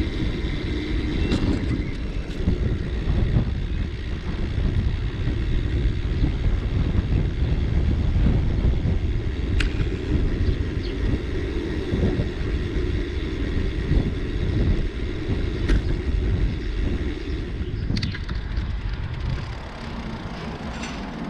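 Riding a bicycle: a steady low rumble of tyres rolling over the path and wind on the microphone, with a few sharp clicks and rattles from the bike. The rumble eases a little near the end.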